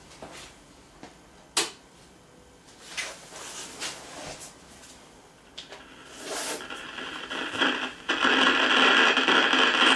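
Philips BI210A valve radio switched on and warming up: a sharp click about one and a half seconds in and a few faint crackles, then sound from its loudspeaker swells in from about six seconds and is loud from about eight seconds in as the valves reach working temperature.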